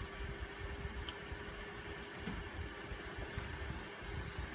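Coil whine from an Asus ROG Strix RX 580 graphics card under load: a high-pitched whine that cuts out just after the start and comes back about four seconds in, over a steady low hum and rumble, with a single click about two seconds in. The whine persists with a new power supply fitted, so it is not caused by the PSU.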